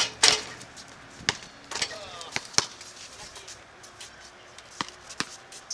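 Basketball being played on a hard court: a ball bouncing and hitting, heard as irregular sharp thuds.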